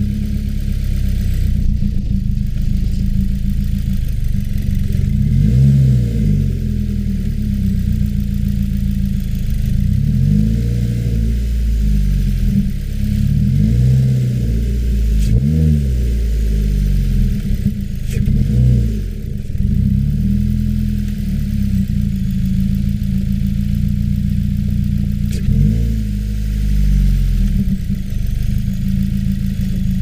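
Turbocharged 2.0-litre flat-four of a 2015 Subaru WRX, with a muffler-delete axle-back exhaust, heard from inside the cabin as a deep, steady drone at low speed. The revs rise and fall briefly several times.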